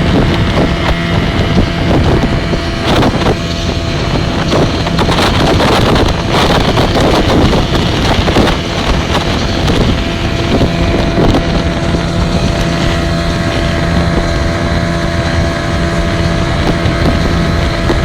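Speedboat's Yamaha motor running at speed, a steady engine drone under the rush of water and wind buffeting the microphone, with frequent slaps against the hull. The slaps and gusts ease off about two thirds of the way in, leaving a smoother engine note.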